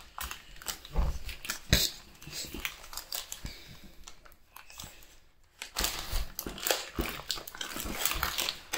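Plastic packaging pouches being torn open and crinkled by hand: scattered sharp rips and crackles, a quieter stretch past the middle, then denser crinkling in the last few seconds.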